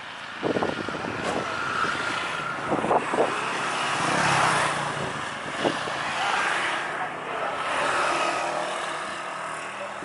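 Small motorbike engine running as the bike pulls away and rides off down the road, its sound swelling and easing several times.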